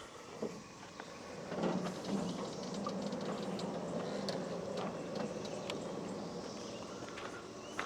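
Bandsaw sawmill's band wheels and blade spinning freely with a steady rolling whir, starting about a second and a half in and easing off near the end, with a few light clicks.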